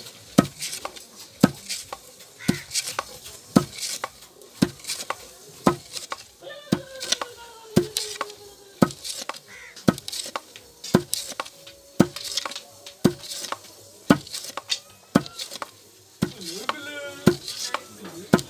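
Long wooden pestle pounding roasted paddy in a hollowed wooden mortar to flatten it into beaten rice (chiura). A steady rhythm of dull thuds, about one heavy blow a second, with lighter knocks between them.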